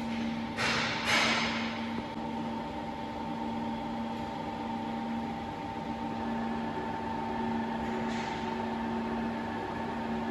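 Steady hum of running workshop machinery, an electric motor drone with a few fixed tones. Two short hissing bursts come about a second in, and a fainter one about eight seconds in.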